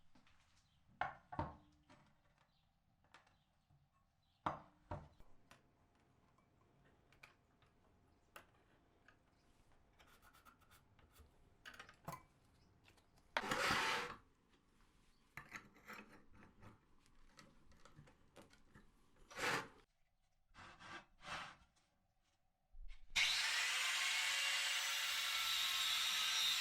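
Workshop tool handling: scattered knocks, taps and short scraping strokes of tools on a bench. Near the end a power tool starts up, its whine rising briefly before it runs on loud and steady.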